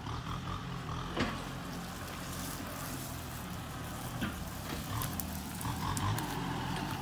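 Kubota M6240 SUH tractor's four-cylinder turbo diesel engine running steadily as it pulls a disc harrow through dry ground, with a couple of faint knocks.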